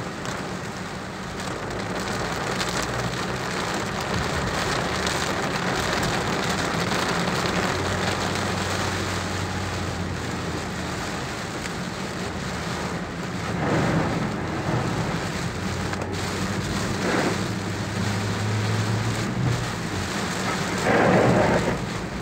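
Heavy rain drumming on a moving car's roof and windshield, heard from inside the cabin as a dense, steady hiss. A few brief louder swells come in the second half.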